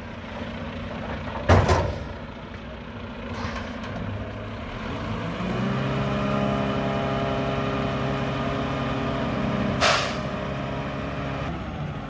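Mack front-loader garbage truck with a McNeilus body: its diesel engine idles, then runs up to a steady higher speed about halfway through. A short air-brake hiss comes early on the approach, and another sharp air hiss comes near the end.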